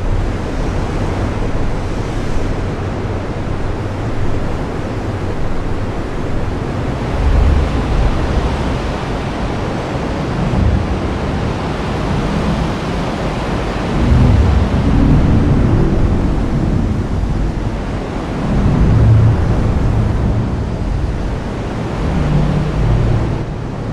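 Heavy rain falling steadily as an even hiss, with deep low rumbles swelling up several times through the middle and later part.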